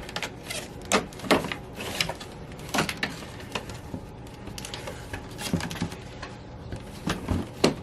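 Plastic accordion side panel of a GE window air conditioner being fed into the unit's top and bottom channels: irregular clicks, knocks and plastic scraping.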